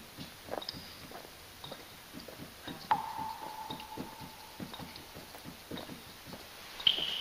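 Repeated soft wet clicking and smacking, about three to four a second, like licking. A sudden ringing note cuts in about three seconds in and holds for over a second, and a sharper, higher note strikes near the end.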